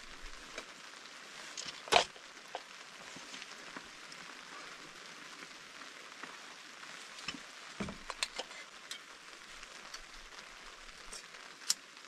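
Steady patter of light rain, with a few knocks and clicks of items being set down and handled on a wooden tailgate table. The loudest knock comes about two seconds in, a cluster follows around eight seconds, and there is a sharp click just before the end.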